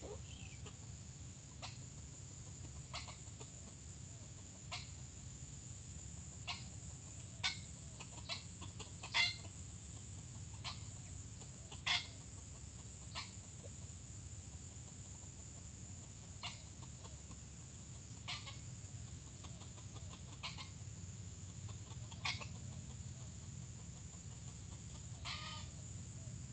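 Junglefowl giving short, sharp clucking calls, one every second or two, with a somewhat longer call near the end.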